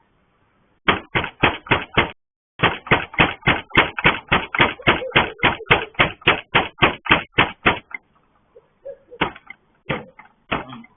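Rapid, loud banging on a gate, heard through a surveillance camera's microphone: five quick blows, a short pause, then about twenty more at roughly four a second, and a few scattered blows near the end.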